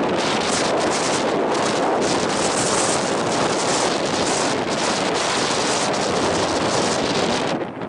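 Wind buffeting the camera microphone: a loud, steady rushing noise that dies away near the end.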